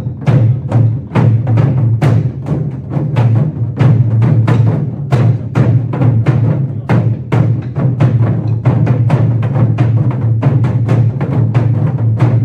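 Modeumbuk ensemble: a row of Korean barrel drums (buk) struck by several players together in a fast, steady rhythm of dense drum strokes.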